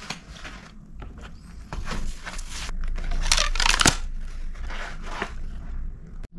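A white cardboard takeaway food box being handled and its lid pulled open, with cardboard scraping and paper rustling. The loudest scrape comes a little over three seconds in.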